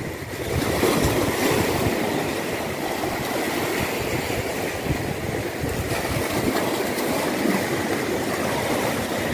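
Small waves washing against the rocks of a stone breakwater, an even rushing noise that starts about half a second in and holds steady.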